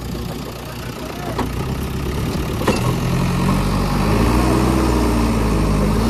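JCB 3DX backhoe loader's diesel engine running as the machine moves over soft ground, building up in revs and loudness over the first few seconds and then holding steady. Two short knocks are heard in the first half.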